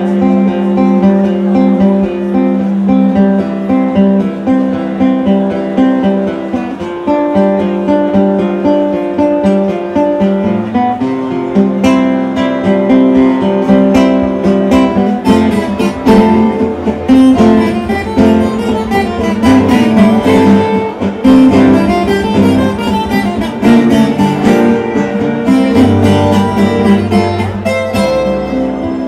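Live instrumental passage of Rio Grande do Sul folk music: acoustic guitars plucked over a keyboard. The picking grows busier and a low bass line comes in about halfway through.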